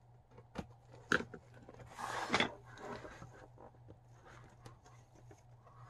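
Hands struggling to open a cardboard box lid: a few sharp clicks and knocks, then a short crackling scrape of cardboard about two seconds in, with lighter handling ticks after.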